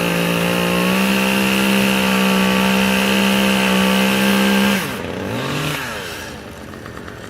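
Two-stroke chainsaw run up to full throttle and held at a high, steady pitch for about five seconds. It then drops back, gives one short rev about a second later, and falls to idle.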